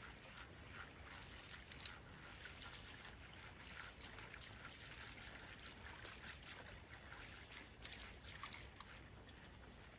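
Faint outdoor background hiss with scattered small sharp clicks, the loudest about two seconds in and again near the end.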